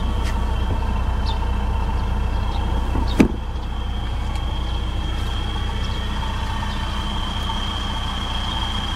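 2012 Mitsubishi Montero Sport running at a steady idle with a low hum and a thin high whine over it; a single sharp knock about three seconds in.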